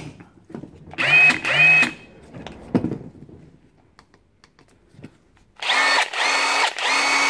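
Bosch 18V cordless 3/4-inch impact wrench spun with no load in short trigger pulls: two quick spin-ups about a second in, then three longer bursts near the end. Each is a motor whine that rises in pitch and then holds.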